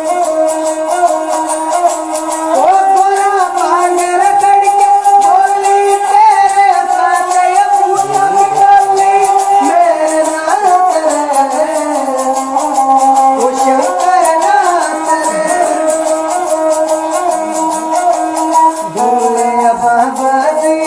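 Folk music: a melodic line of long held notes that slide in pitch, over a steady rattling, shaker-like percussion.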